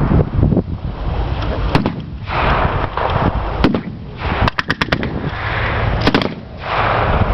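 Gunfire from reenactors firing at the low-flying plane: scattered single shots, then a rapid burst of about six shots in the middle and another short burst near the end, over a loud rumbling background.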